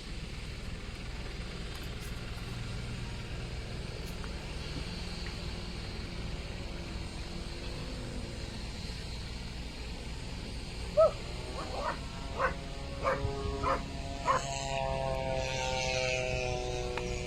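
A dog barks about six times in quick, sharp yelps, then lets out a long, slowly falling whine.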